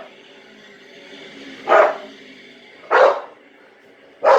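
A dog barking: three loud single barks a little over a second apart.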